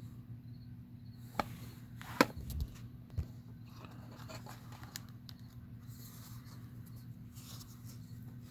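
Packaging being handled and opened: a few sharp clicks and knocks, the loudest about two seconds in, and light rustling, over a steady low hum.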